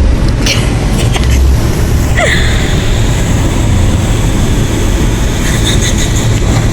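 Car cabin noise while driving in snow: a steady low rumble of engine and road, with a thin high hum that comes in about two seconds in and holds.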